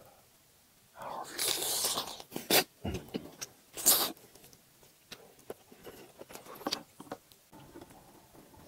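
Close-miked eating sounds: slurping and chewing stretchy melted mozzarella. There is a long wet slurp about a second in, a sharp loud one near four seconds, and lighter mouth clicks and smacks after that.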